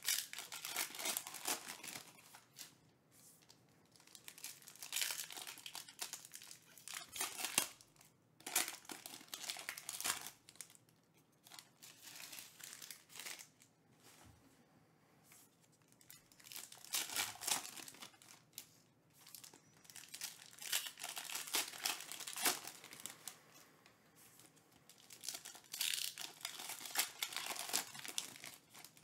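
Foil trading-card pack wrappers crinkling and tearing as packs are ripped open by hand, in repeated bursts a few seconds apart.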